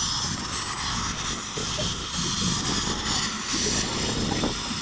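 Air ambulance helicopter running on the ground before take-off: a steady high turbine whine over the rumble of the engines and rotor.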